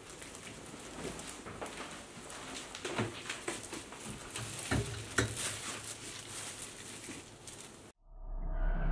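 Clear plastic dry-cleaning garment bag crinkling and rustling as a dress on a wire hanger is handled and hung on a closet rail, with a few light clicks of the hanger. About eight seconds in it cuts off and a low drone begins.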